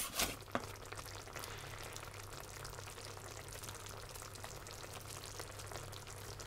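Tomato and vegetable sauce simmering in a pot, a faint steady crackle of small bubbles over a steady low hum. A couple of light knocks come right at the start.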